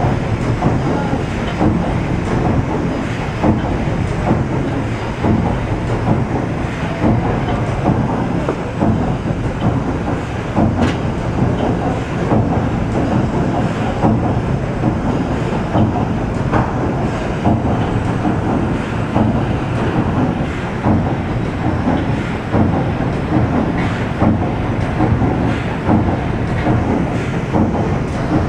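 PS Waverley's port paddle wheel turning at speed inside its paddle box, the floats beating and churning the water in a loud, steady rush with a regular pulsing beat.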